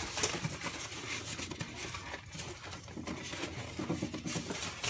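Hands rummaging inside a large cardboard shipping box: an uneven run of rustling and scraping from the cardboard and the packing material.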